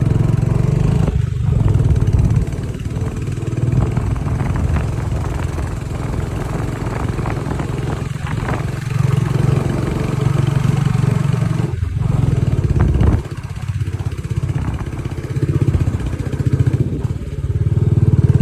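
Royal Enfield Standard 350's single-cylinder engine running under load as the motorcycle climbs a hill road, with a few brief throttle dips, the deepest about 13 seconds in.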